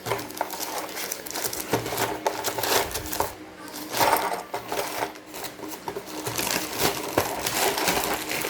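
Plastic parts and packaging from a network patch panel box being handled, giving irregular clicking, tapping and rattling.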